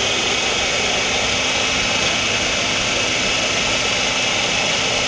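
Hamilton Beach food processor motor running steadily at full speed, its blade puréeing a thick hot-pepper sauce mixture to an emulsion.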